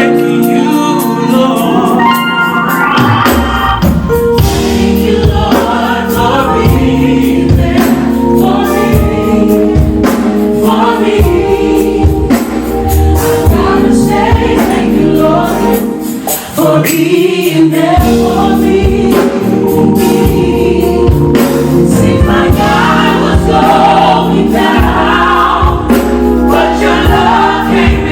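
Live gospel choir singing with a band: drums and a steady beat, with bass and keys underneath.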